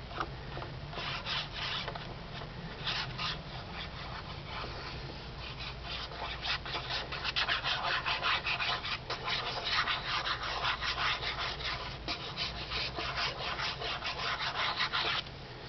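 Hand rubbing back and forth over paper and cardstock, smoothing down a freshly glued sheet, in quick dry scratchy strokes. The strokes grow quicker and louder partway through and stop suddenly near the end.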